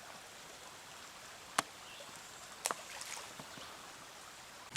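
Steady rushing of a small mountain stream, with two sharp clicks about a second and a half and nearly three seconds in.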